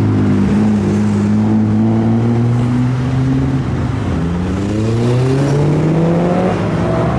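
Car engine accelerating loudly: its pitch holds and creeps up, drops about halfway through as at a gear change, then climbs steadily again.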